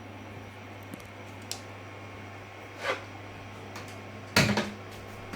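Handling noises in a small room over a steady low hum: a few light clicks, a brushing sound near three seconds, and a sharp knock with a short rattle about four and a half seconds in.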